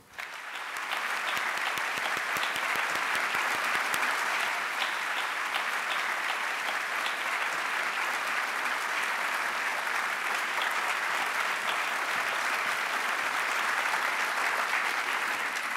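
Large audience applauding: many hands clapping in a dense, steady patter that swells up at the start and dies away near the end.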